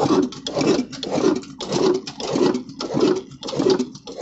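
Old single-cylinder horizontal diesel engine with heavy flywheels running, its exhaust and mechanism beating out a steady, even rhythm of about three thumps a second.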